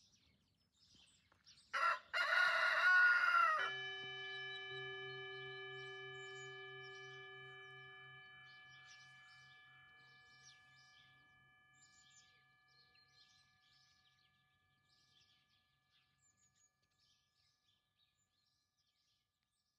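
A rooster crows once, about two seconds in, a crow of under two seconds that cuts off sharply. A ringing tone of several pitches takes over and slowly fades away, with small birds chirping faintly throughout.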